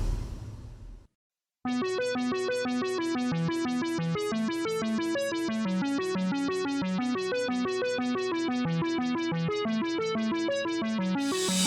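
Background music. One track fades out, and after a short gap a steady run of quick, repeating electronic keyboard notes plays. A louder track begins near the end.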